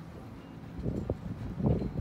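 Wind buffeting the microphone in two gusts, about a second in and again near the end, the second the louder, over a steady low hum.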